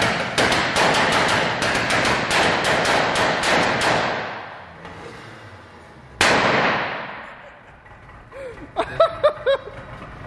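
Exhaust of a turbocharged VW 1.8T engine swapped into a Honda Civic, popping and crackling in quick, irregular sharp bangs that fade out about halfway through. One louder single bang follows about six seconds in.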